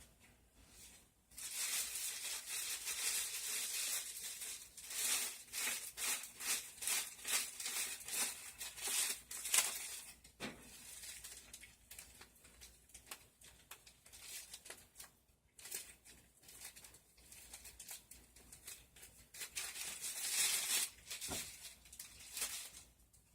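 Plastic packaging crinkling and rustling as it is handled, in many quick irregular strokes.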